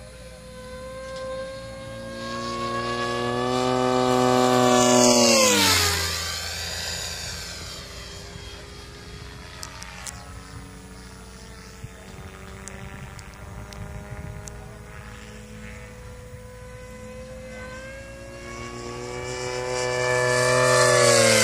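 Radio-controlled model aircraft making two fast passes. The whine of its motor and propeller grows louder, then drops sharply in pitch as it goes by, about five seconds in and again near the end. A quieter, steady drone fills the time between the passes.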